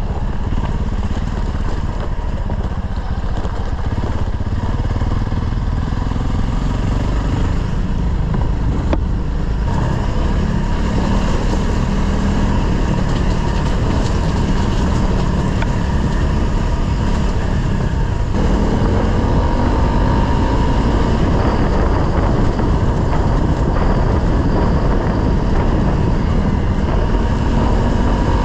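Honda CRF motorcycle engine running steadily under way. Its note shifts about ten seconds in and again about eighteen seconds in, rising slightly after the second shift.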